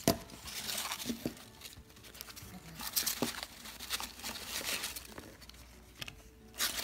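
Foam packing peanuts and paper wrapping rustling and crinkling as a hand digs small wrapped parcels out of a cardboard box, with a few light taps as they are set down on a wooden table.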